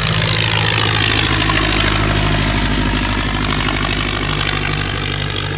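Vintage single-engine biplane's piston engine and propeller droning steadily as it flies low past, with a hollow sweep in the sound that falls and rises as it goes by.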